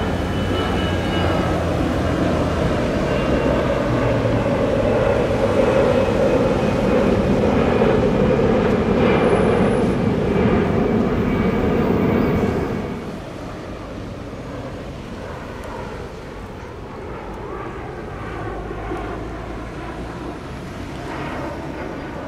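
Airbus A320 jet engines climbing out after takeoff, a loud steady roar. About thirteen seconds in it cuts to the fainter, steady jet sound of a HondaJet HA-420, a small twin-engine business jet with its two GE Honda HF120 turbofans mounted over the wings, passing overhead.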